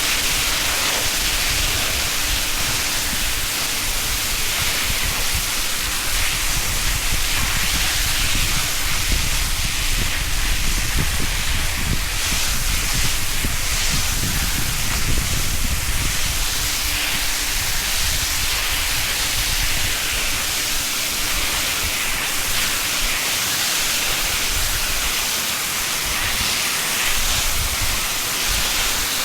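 Dairy shed yard wash-down hose jetting water at full force: a steady, loud rush and hiss of water. A faint steady hum runs underneath and drops out for a few seconds midway.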